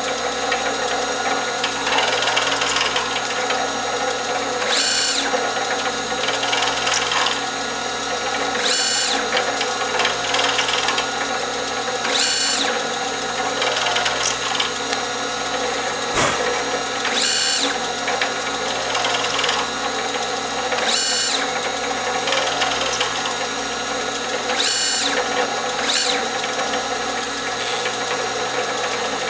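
Drill press running steadily while a CNC rotary table drills a ring of six holes in a small disc. A short high-pitched burst comes about every four seconds, six in all, one for each hole in the pattern.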